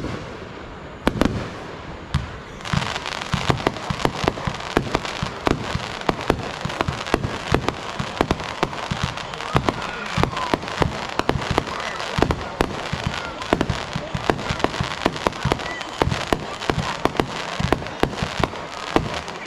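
Aerial fireworks exploding in rapid succession, with many sharp bangs and booms. A dense crackling sets in about three seconds in and continues under the bangs.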